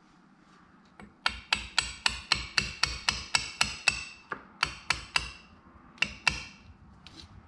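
A hammer tapping the end of an outboard's upper trim rod to drive it through the trim bracket and its new bushings. The taps are sharp, about four a second for some three seconds, then a few more with short pauses.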